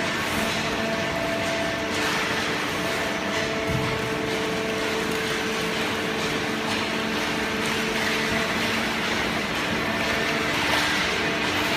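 Hydraulic baler's pump unit running: a steady machine hum with several held tones over a rushing noise.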